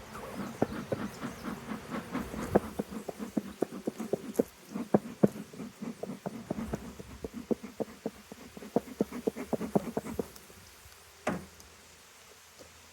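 Wooden beehive parts knocking and clacking in quick, uneven succession as the hive is closed up, then a single louder knock about eleven seconds in.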